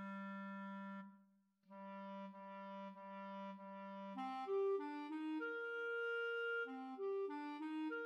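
A single B-flat clarinet playing the second, accompanying part of a clarinet duet. It plays a low held note, then after a short break four repeated low notes, then a quicker figure of changing notes that ends on a held higher note.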